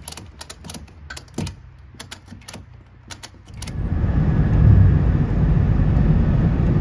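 Irregular sharp metallic clicks as a tie-down strap at the boat's stern is ratcheted and worked. About three and a half seconds in, a loud steady rumble of road and wind noise from a vehicle driving at speed takes over.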